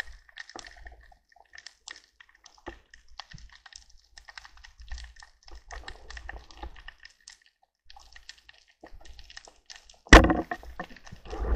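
Underwater reef crackle: faint irregular clicks and ticks, typical of snapping shrimp. About ten seconds in there is a sudden loud burst of noise lasting about a second.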